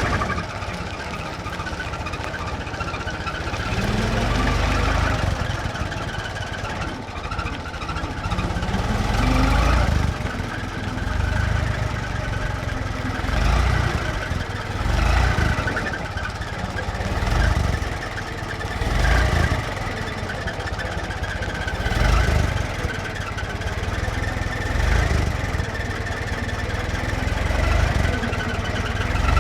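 1924 Ford Model T stake bed pickup's four-cylinder flathead engine idling with repeated short revs. The revs come roughly every two to three seconds through the second half.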